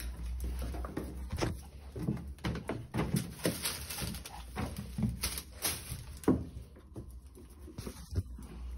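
A Pomeranian and two Dalmatian puppies wrestling on a tiled floor: irregular scrabbling and bumping of paws and bodies, easing off near the end.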